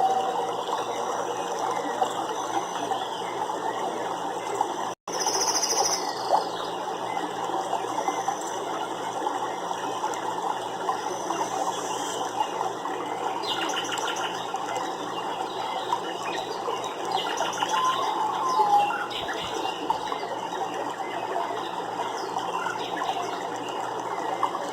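Nature soundscape: a dense, steady background of many small ticks and chatters, with a few faint bird chirps and a short gliding call near the two-thirds mark. The sound cuts out for an instant about five seconds in, where the recording is spliced.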